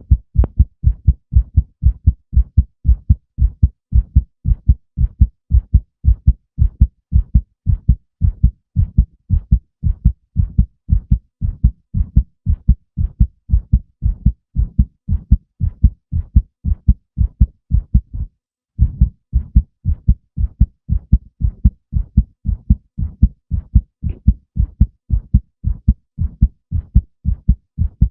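Heartbeat: low, thudding lub-dub beats in a steady, even rhythm, with a brief break about two-thirds of the way through.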